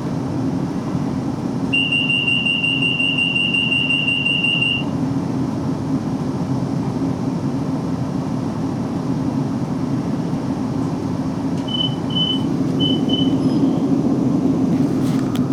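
Class 458 electric train's door warning tone, heard from inside the carriage over the train's steady hum. One high, single-pitched tone is held for about three seconds, and about twelve seconds in there are four short beeps at the same pitch.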